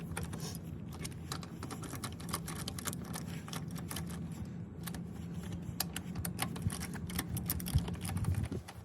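Lug nuts being tightened onto a car wheel with a wrench: rapid, irregular metallic clicking, over a low steady hum.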